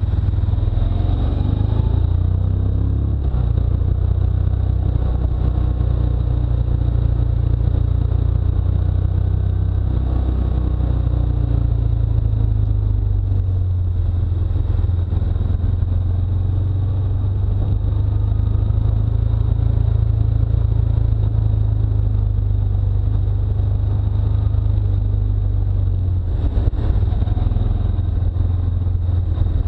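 Motorcycle engine under way, its pitch rising and falling with the throttle through the bends, under heavy wind rumble on the action-camera microphone.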